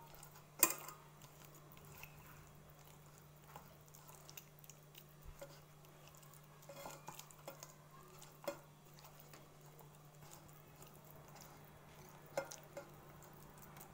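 Fish steaks being mixed by hand in masala paste in a stainless-steel bowl: faint stirring, with occasional clinks against the bowl, the loudest about half a second in and near the end.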